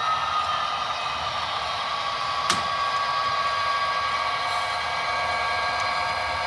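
HO scale model train running on the layout: a steady whir with thin steady tones, and one sharp click about two and a half seconds in.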